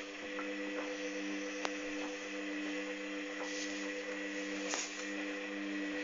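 Hoover Dynamic washing machine turning its drum at wash speed with the laundry tumbling: a steady motor hum with a few held tones, broken by a sharp click about one and a half seconds in and another near the end.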